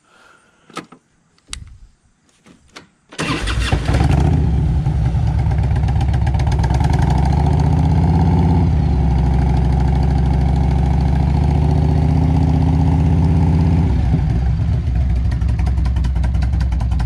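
1998 Harley-Davidson Electra Glide Classic's Evolution V-twin: a few clicks, then the starter cranks briefly and the engine catches about three seconds in. It settles into a steady idle whose pitch shifts slightly a couple of times.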